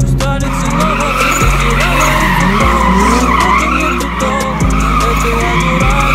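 Car tyres squealing in one long, continuous drift, with the engine's revs rising and falling underneath, over music with a heavy bass line.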